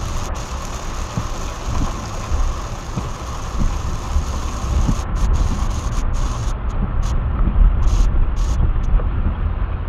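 A car driving through heavy rain, heard from inside the cabin: a steady low road rumble from tyres on the wet road, with a hiss of rain on the windshield and roof.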